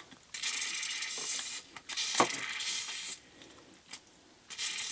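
Ratchet parts being cleaned over a tub: a hissing noise that comes in stretches of a second or so, with a sharp click in the middle, a pause, and more hissing near the end.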